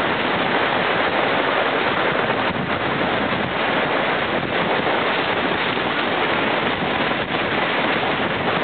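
Steady rush of wind on the microphone during a fast slide down a snowy slope, mixed with the hiss of an inflatable airboard sled running over snow.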